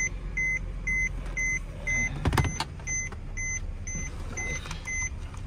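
A car's warning chime beeping steadily about twice a second, stopping near the end, with a single knock a little over two seconds in.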